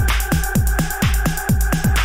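Electronic background music with a steady, fast beat of deep kick drums that drop in pitch, over sustained synth tones and crisp high percussion.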